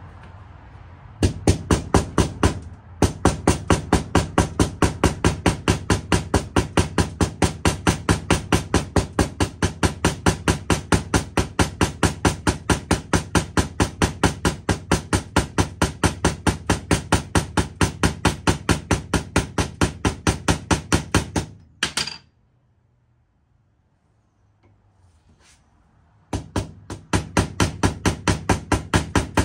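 Small hammer tapping steel on steel: a fast, even run of sharp metallic taps on the jeweler's hand vise part resting on a steel block. The tapping stops for a few seconds after one last single tap, then starts again near the end.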